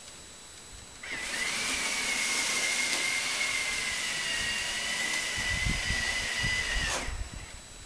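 Robotic snow shovel's electric motor running with a steady high whine and a rush of noise. It starts about a second in and cuts off abruptly near the end, with a few low thumps in its last second or two.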